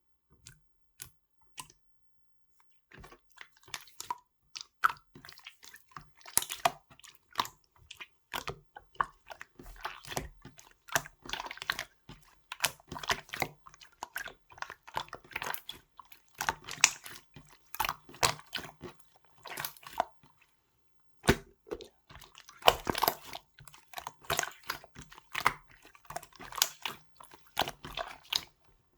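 Pink semi-transparent slime being kneaded and squeezed by hand, giving a dense run of wet clicks and crackling pops from trapped air. It starts with a few scattered clicks, then turns busy about three seconds in, with a brief pause about twenty seconds in.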